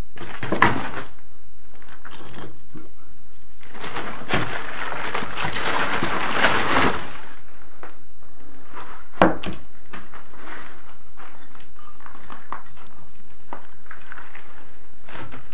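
Rubble and broken floor screed being moved and cleared by hand. There is a knock about half a second in, a longer scraping rustle from about four to seven seconds in, a sharp knock about nine seconds in, and a few lighter knocks after it.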